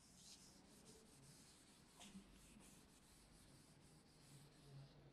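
Faint rubbing of a cloth wiping a chalkboard, in repeated quick strokes.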